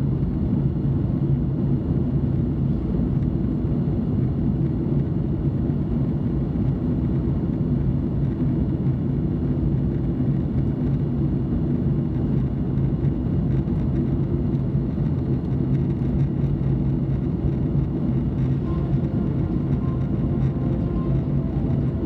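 Boeing 737 MAX 8 with CFM LEAP-1B turbofans climbing after takeoff: a steady engine and airflow rumble with a low hum.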